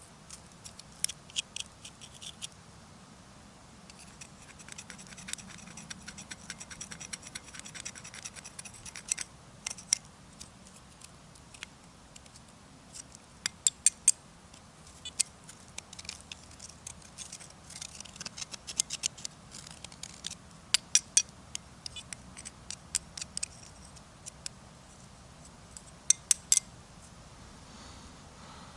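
Irregular sharp scratching and clicking in clusters, the loudest clicks a little past the middle and again near the end.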